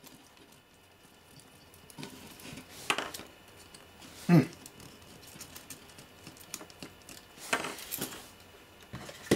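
Handling noise of a radio's metal-framed circuit board assembly being worked apart by hand: scattered clicks and light knocks of metal and board edges, one sharper knock about halfway through and a quick cluster of clicks near the end.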